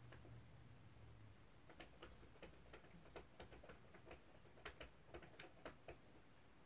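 Faint laptop keyboard typing: a run of irregular keystrokes starting about two seconds in and stopping about six seconds in.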